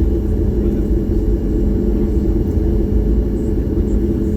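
Steady low cabin rumble of a Boeing 737 MAX 8 taxiing after landing, its CFM LEAP-1B engines at idle, with a constant hum over it.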